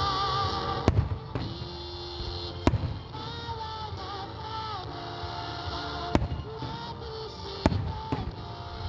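Large No. 7 aerial firework shells bursting: four sharp booms spread through, the first two the loudest. Music with sustained tones plays underneath.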